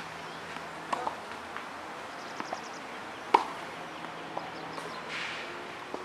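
Tennis rally on a clay court: sharp pocks of a tennis ball struck by racket strings, a couple of seconds apart, the loudest about three and a half seconds in. Softer ticks of the ball bouncing come between them, and a short scuff of a shoe sliding on the clay comes near the end.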